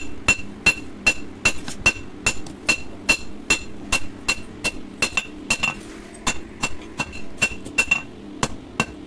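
Blacksmith's hand hammer beating a red-hot steel blade on an anvil: steady strikes about two and a half a second, some doubled, each with a bright metallic ring.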